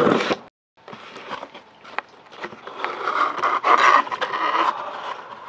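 A cardboard box being cut open with a blade: scraping and scratching with several sharp clicks, denser in the second half.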